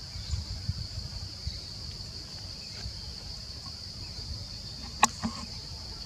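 Steady high-pitched insect drone, with a low rumble underneath and two sharp clicks close together about five seconds in.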